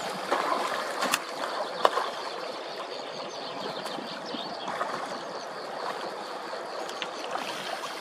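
Steady rushing of river water with a few short sharp ticks scattered through it.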